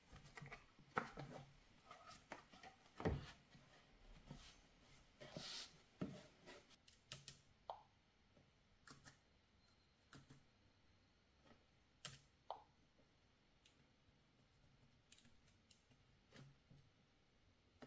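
Faint, scattered clicks of keys being pressed one at a time on a compact Teclast Bluetooth keyboard, with a few soft taps and knocks in the first few seconds.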